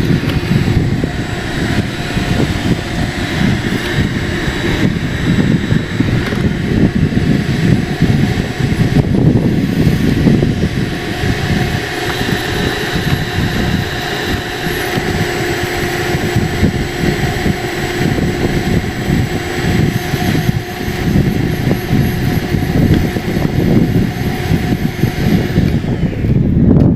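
Vacuum running steadily, sucking ice chips out of a drilled hole in the ice: a constant motor whine over a dense rush of air.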